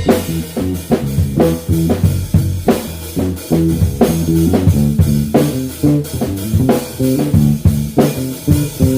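Electric bass (Fender Precision) played through a Harley Benton Block 800B amp head and Kustom 4x10 cabinet, a plucked bassline of changing low notes over a steady drum beat, picked up by a mobile phone.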